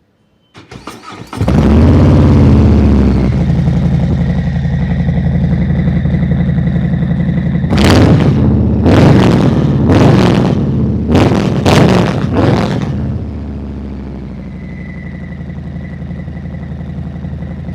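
Harley-Davidson Low Rider's 1700 cc V-twin engine cranking on the starter and catching, then idling through its exhaust. In the middle it is revved several times in quick succession before settling back to a lower idle, and it dies away near the end.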